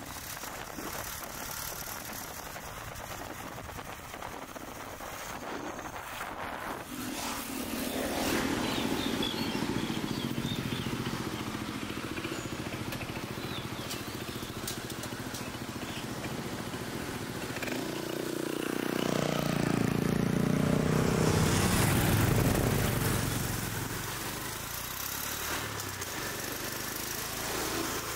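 Motorcycle and city traffic running, with a steady road and engine noise. The noise builds about a quarter of the way in, and a vehicle passes loudest about two-thirds of the way through, then fades.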